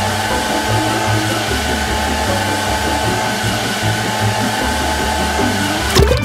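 Steady rushing machine noise with a low pulsing underneath. A sharp crack comes about six seconds in, and the rushing drops away after it.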